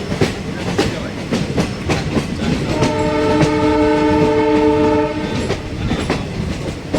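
Train wheels clattering over rail joints in a steady run of clicks, with a locomotive horn sounding one long blast of about two and a half seconds, starting about three seconds in.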